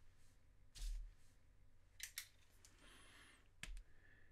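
Near silence broken by a few faint, sharp clicks and light taps: one about a second in, two in quick succession about two seconds in, and a pair near the end.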